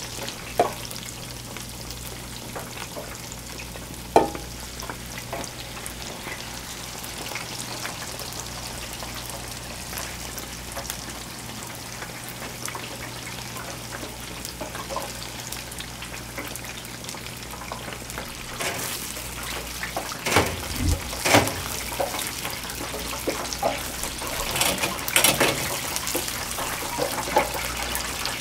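Batter-coated pork slices deep-frying in a fryer of hot oil, bubbling and sizzling steadily, with louder bursts of sizzling around twenty and twenty-five seconds in. Two sharp clicks come about half a second and four seconds in, over a low steady hum.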